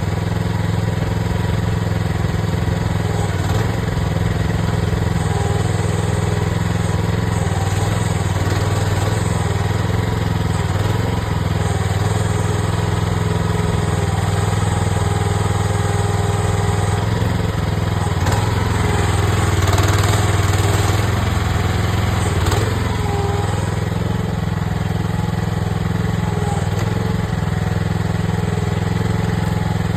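Small engine of an AGT mini excavator running steadily under digging work, getting a little louder for a few seconds past the middle, with a few sharp knocks.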